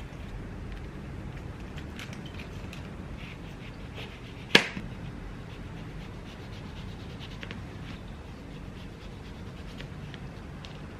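Quiet kitchen prep over a low steady hum: soft crackles and scrapes of lettuce leaves being pulled apart and a serrated knife cutting orange peel on a plastic cutting board. One sharp knock about four and a half seconds in.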